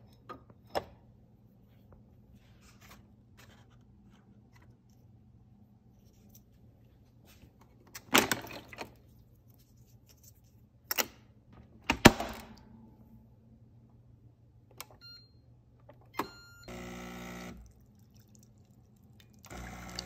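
Instant Dual Pod Plus capsule coffee maker being loaded and started: a glass clinks onto the drip tray, then the lid and capsule holder clack open and shut, loudest about eight and twelve seconds in. A couple of short beeps follow, the pump hums for about a second, and near the end the pump starts again as the espresso begins to brew.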